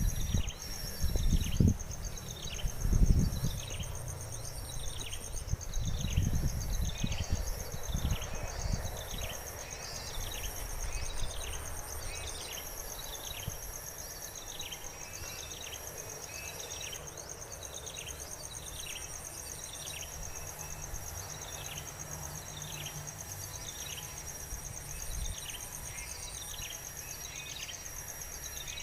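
A steady high insect buzz runs under a short falling chirp that repeats at an even pace, about three every two seconds. Low bumps and rustling come in the first several seconds, then fade.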